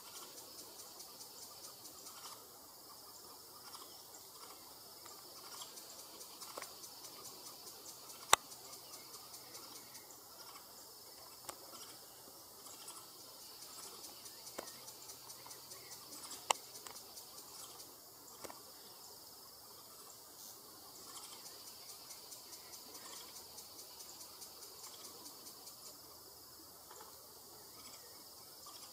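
Steady chorus of forest insects: a high, evenly pulsing buzz. Two loud, sharp clicks stand out, about eight and sixteen seconds in, with a few fainter ones between.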